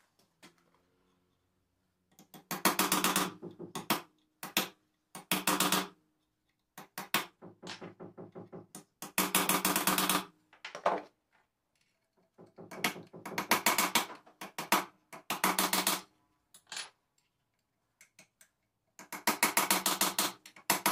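Power impact driver hammering in short bursts, seven times, each a fast rattle of blows over a steady motor hum, as it works at seized screws on an alternator's front housing.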